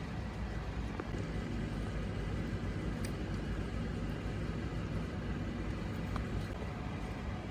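Steady low noise, with a few faint clicks about one, three and six seconds in.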